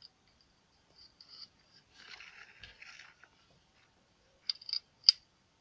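Faint scraping and crunching handling noises, then a few sharp clicks near the end, the loudest about five seconds in, as a circuit board is handled.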